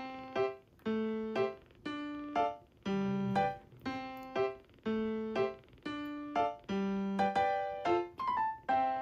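Background piano music: a light, repeating tune with notes struck about once a second.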